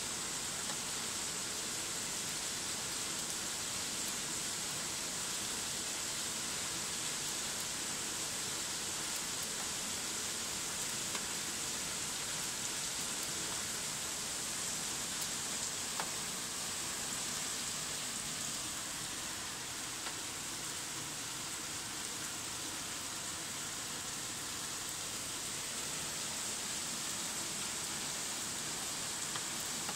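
Steady rain falling on a paved courtyard, an even hiss with no breaks. One small click sounds about halfway through.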